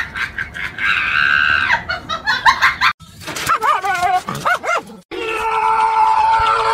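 Dog vocalisations: a quick run of short sharp yips, then wavering howls that rise and fall in pitch, then a steady held tone.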